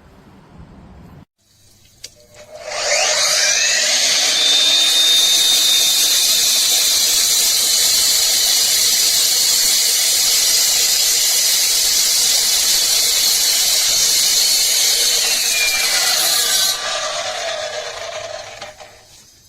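12-inch 1800 W electric concrete saw spinning up with a rising whine, running loud and steady for about fourteen seconds, then winding down to a stop near the end.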